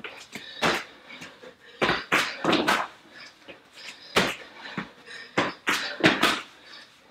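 A person doing burpees on a rubber floor mat: irregular thuds of hands and feet landing, mixed with hard, panting breaths.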